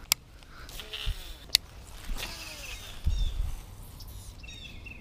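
Two sharp clicks from handling a baitcasting rod and reel during a cast and retrieve, with a low rumbling stretch about three seconds in. Small birds chirp repeatedly near the end.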